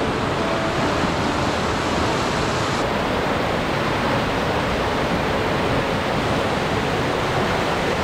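Mountain stream rushing over rock slabs and small rapids: a steady, even sound of running water.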